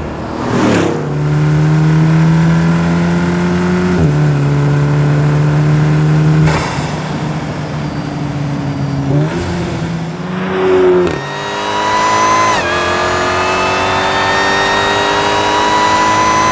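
European muscle car engine pulling hard through the gears. The engine note climbs slowly in pitch, then drops at each of several upshifts.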